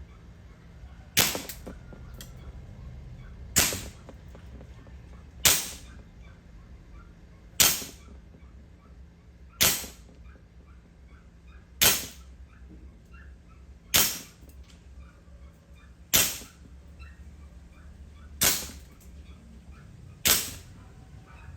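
WE M16A4 gas blowback airsoft rifle firing single shots, about one every two seconds, ten shots in all. Each is a sharp report from the gas-driven bolt cycling.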